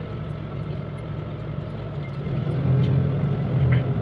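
Ride noise inside a moving bus: a steady low engine and road hum, swelling louder for about a second a little past halfway.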